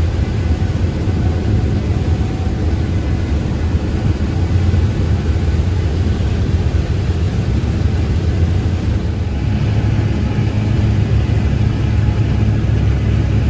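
Heavy farm machinery engine running steadily, a low drone with no change.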